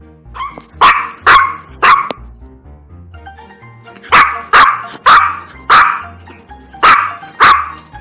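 A dog barking: nine short, loud barks in three groups (three, four, then two), over background music.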